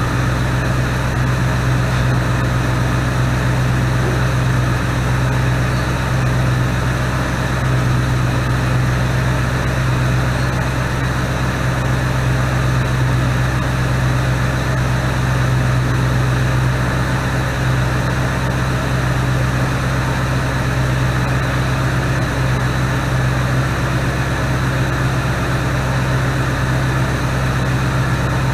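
Ford 289 V8 running steadily with an even low hum, on its first run in 20 years after a top-end and carburetor rebuild, with the timing and carburetor not yet adjusted.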